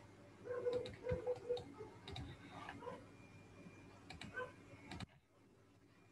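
Several light computer mouse clicks at irregular intervals, over a faint background hiss that cuts out suddenly about five seconds in.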